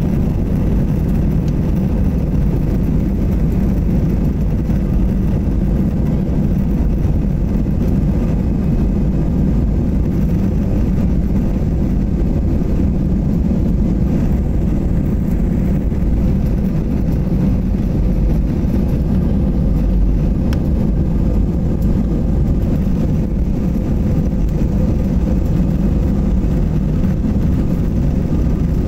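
Jet airliner heard from inside the cabin while taxiing: a steady low rumble of the engines at low thrust and the wheels rolling on the taxiway, with no rise in pitch or level.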